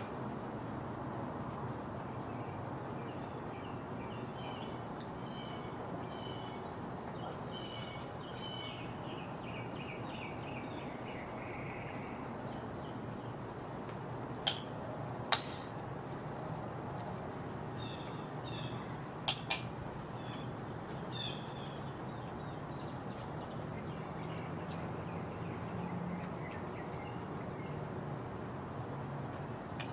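Swallow-tailed kites calling: rapid series of short, high whistled notes, for several seconds after the start and again after the middle. Four sharp clicks in two pairs come near the middle, the loudest sounds, over a steady low background noise.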